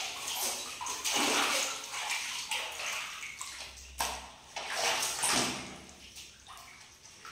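Water splashing and sloshing in a bath in irregular bursts, with the strongest splashes about a second in and again around four to five seconds, quietening near the end.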